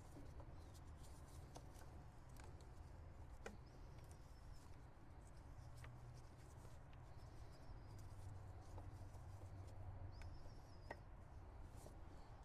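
Near silence: low room hum with a few faint scattered clicks.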